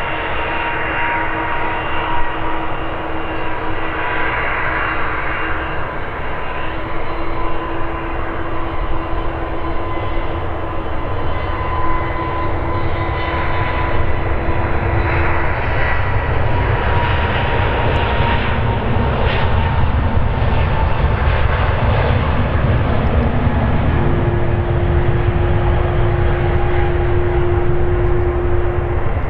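Boeing 787 Dreamliner's jet engines at climb power just after take-off: a steady rumble with a high whine held over it that drops slightly in pitch in the second half.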